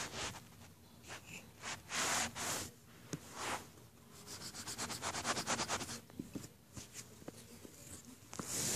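Rubbing and scratching strokes against paper: a few separate scrapes, then a quick back-and-forth run of strokes, about ten a second, for under two seconds.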